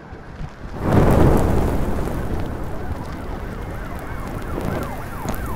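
A whoosh of flames bursting up about a second in, settling into a steady roar of fire. From about halfway a siren fades in, wailing up and down about two to three times a second and growing clearer toward the end.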